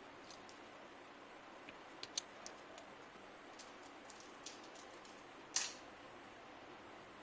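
Scattered sharp clicks and taps over a steady low hiss, the loudest about five and a half seconds in.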